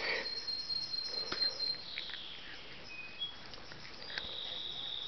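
A small dog whines faintly in thin, high-pitched squeaks that come and go, with a longer held whine from about four seconds in and a few soft scuffs of movement.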